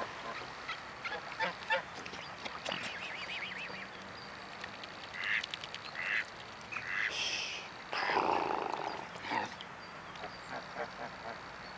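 Mute swans, their cygnets and other waterfowl giving short honking and quacking calls, scattered and irregular, with a brief louder rushing noise about eight seconds in.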